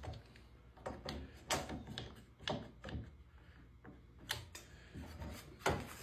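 One-handed trigger bar clamp being ratcheted tight with repeated squeezes, clamping a metal speed square onto a framing square: a string of sharp, irregularly spaced clicks and clacks.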